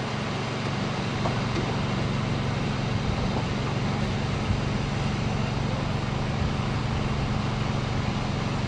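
Steady engine noise: a constant low hum with an even hiss over it.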